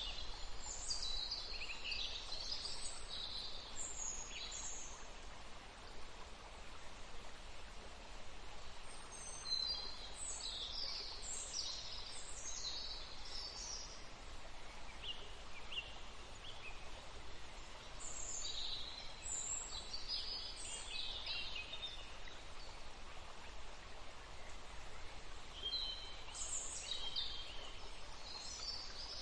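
Birds chirping in bouts of a few seconds, about every eight to nine seconds, over a steady background hiss.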